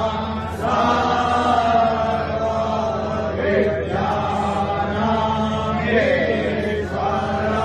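Hindu devotional chanting of a Shiva mantra in long held notes, with a new phrase about every two to three seconds, over a steady low drone.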